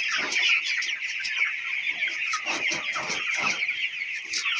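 A large flock of broiler chickens chattering and clucking together: a dense, steady mass of overlapping calls, with single calls falling in pitch standing out now and then.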